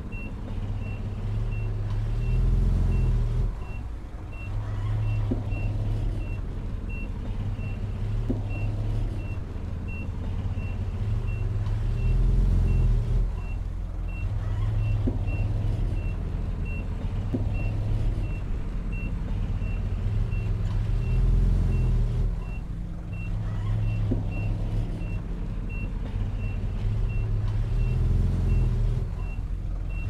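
Heavy diesel earthmoving machine working, its engine rising and falling every few seconds under load, with a back-up alarm beeping steadily about three times every two seconds.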